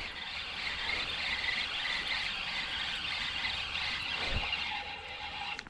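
Spinning fishing reel buzzing steadily as a hooked smallmouth bass is fought in, the sound of the reel working under load from the fish.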